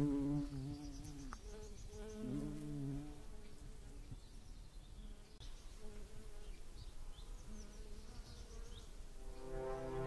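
An insect buzzing in a wavering hum, strongest over the first three seconds, with faint high bird chirps. Music swells in near the end.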